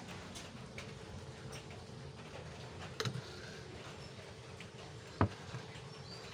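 Quiet background with two short light knocks about two seconds apart, from the opened tin can being handled.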